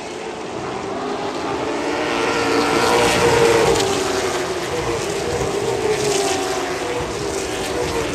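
Late model stock car V8 engine noise at racing speed. The engine note rises and falls in pitch and is loudest about three seconds in.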